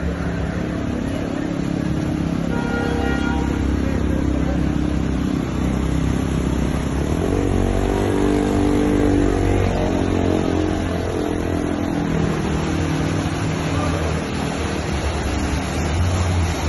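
Car engines running as vehicles move through a flooded street, over a steady rush of water and rain; one engine grows louder about eight seconds in.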